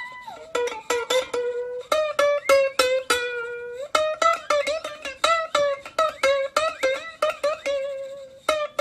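Background music: a quick, bouncy tune of plucked strings over a held melody line.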